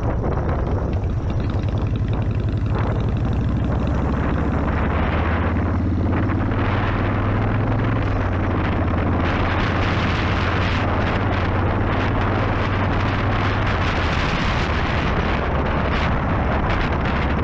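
Chopper motorcycle engine running steadily at cruising speed, with wind rushing over the microphone; the wind noise grows louder about halfway through.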